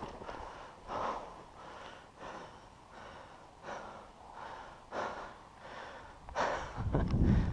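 A person breathing hard close to the microphone, one breath about every second and a half. Near the end a louder low rumble comes in.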